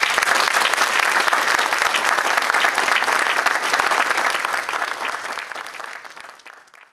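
Audience applauding, starting at once and fading out over the last couple of seconds.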